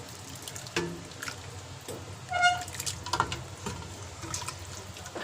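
Kitchen clatter: a series of light knocks and clinks of utensils and cookware, with one short ringing tone about two and a half seconds in.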